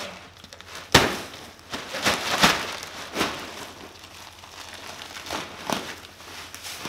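A plastic-wrapped bag of large-flake wood shavings is dumped into a wooden chicken pen and the shavings are spread by hand. There is a sharp thump about a second in, then bursts of dry rustling and crackling from the shavings and the crinkling plastic.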